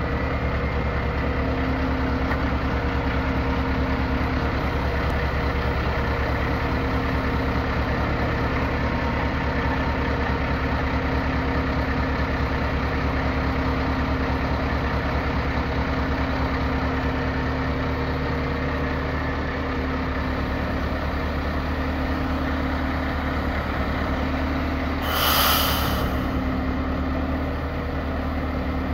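Renault Premium 320 DCI truck's diesel engine running steadily while its Hiab crane is worked, with a steady hum that drops out for a while and returns as the boom moves. A short, sharp hiss comes about 25 seconds in.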